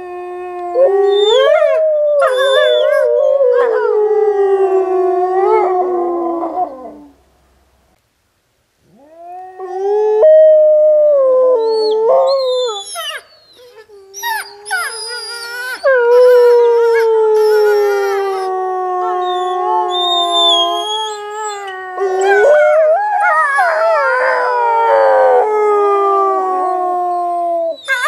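Gray wolves howling in chorus: several long, overlapping howls at different pitches. The chorus dies away about seven seconds in and, after a short pause, starts up again about nine seconds in.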